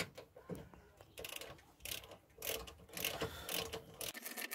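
Hand ratchet with a hex (Allen) bit socket clicking in short runs as it turns in the Allen-head bolts holding a brake backing plate to the rear hub.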